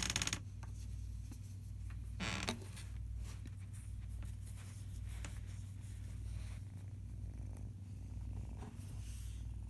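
Domestic tabby cat purring steadily, a continuous low rumble, with brief rustles at the very start and about two seconds in.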